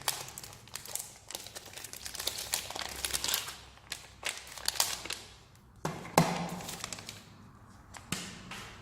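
Plastic packaging crinkling and rustling as kit items are handled, with scattered taps and light knocks of things being set down on a table; a sharper knock about six seconds in.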